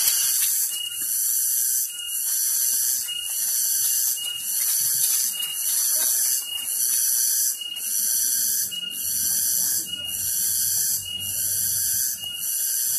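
Cicadas buzzing loudly and high-pitched, pulsing evenly a little under twice a second.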